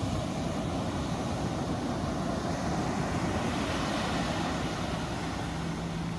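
Steady roar of surf and wind at a beach, with a low, steady engine hum coming in about four seconds in.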